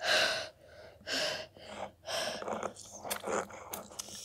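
Heavy gasping breaths through a mouth full of food: four breathy huffs about a second apart, the first the loudest.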